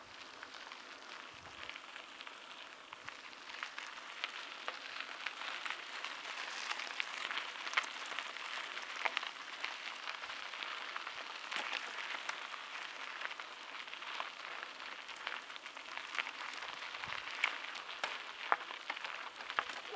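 Mountain bike tyres rolling over a gravel and dirt trail: a steady crackle of grit under the tyres with scattered sharp clicks and rattles, growing louder over the first few seconds.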